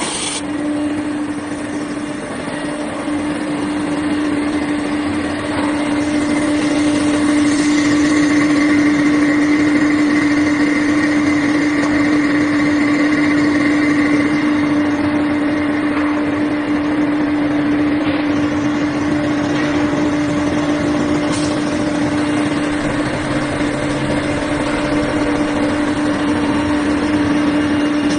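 Spindle of an automatic-tool-changer CNC router running at a steady speed during a machining job, a steady high hum over the noise of the work.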